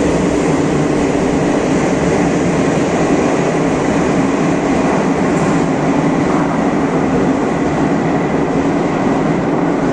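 Madrid Metro series 5000 train running out of the station into the tunnel: a loud, steady running rumble with a thin high whine held throughout.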